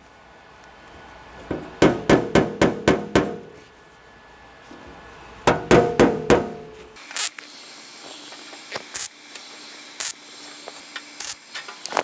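Body hammer tapping a thin 18-gauge steel patch panel to bring it flush: two quick runs of ringing metallic taps, about seven strikes and then about five. A few short, sharp bursts follow near the end.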